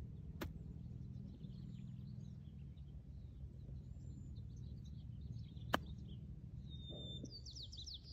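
Golf chip shot: one sharp click of the iron striking the ball about five and a half seconds in, with a fainter click near the start. Birds chirp over a steady low outdoor rumble, with a burst of bird trills near the end.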